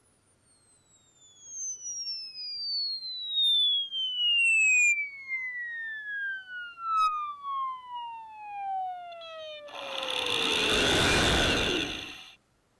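Sine-wave frequency sweep played through a shop vac's motor coil used as a speaker: one steadily falling tone with strong overtones, the distortion of the motor speaker. As the sweep nears the low frequencies, about ten seconds in, it breaks into a loud noisy buzz, which stops abruptly near the end.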